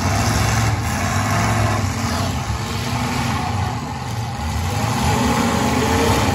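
Engines of several demolition derby cars running and revving together on a dirt arena, their pitch rising and falling.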